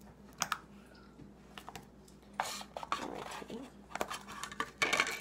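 Green jiggly slime with a few foam beads being poked and pressed by fingers, making small sharp clicks and pops. There is a longer squishing stretch about two and a half seconds in. Near the end comes a louder rustle as the plastic slime tub is handled.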